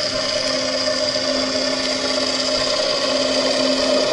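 A steady mechanical hum with a constant hiss heard underwater, holding a few fixed pitches; the lowest tone drops away near the end.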